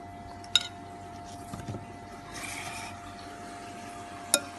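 Kitchen handling sounds at a bowl of marinating pork: two sharp taps, about half a second in and near the end, and a short rustle in between, over a steady electrical hum.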